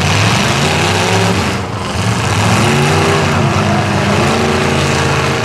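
Demolition derby cars' engines running loudly together, with revs rising and falling.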